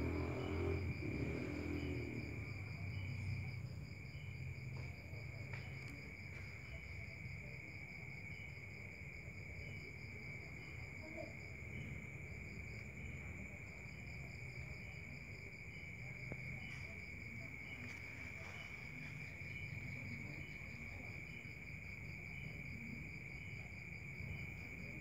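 Insects chirping steadily at several pitches: a high continuous trill, a faster pulsing one above it, and a softer chirp repeating about once or twice a second. Background music fades out in the first couple of seconds.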